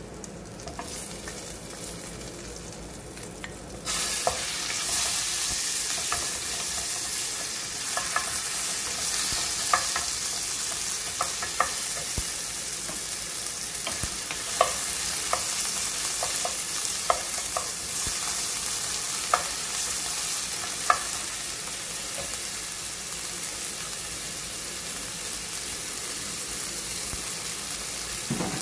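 Raw chicken pieces frying in hot oil in a pan, the sizzle starting suddenly and loudly about four seconds in and running on steadily. A wooden spoon stirs the pieces, with scattered knocks and scrapes against the pan until about two-thirds of the way through.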